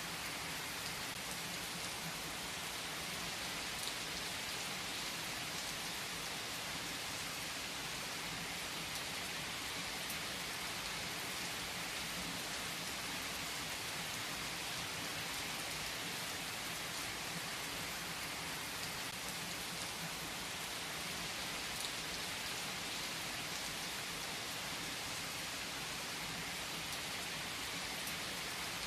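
Steady rain falling: an even hiss with a few sharper drop taps here and there.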